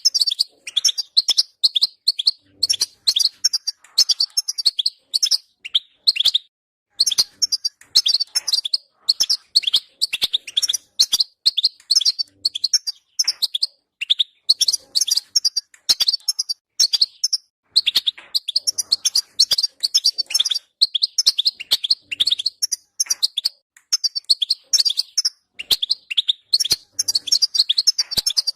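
European goldfinch singing: fast, tinkling twittered phrases of one to two seconds, separated by brief pauses.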